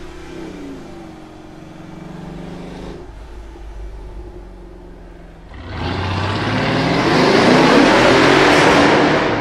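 Mercedes ML63 AMG's twin-turbo V8 with a Capristo valved exhaust: a moderate engine note heard from inside the cabin, then, about five and a half seconds in, a much louder burst of hard acceleration as the SUV pulls away in an underpass, building to its loudest near the end.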